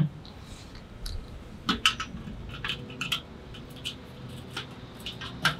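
Sharp metallic clicks, taps and scrapes as a screwdriver bit pries at a rust-seized, washer-like part of a Weber kettle's One-Touch cleaning system among its aluminium sweep blades. A loud click comes at the very start, then scattered smaller clicks.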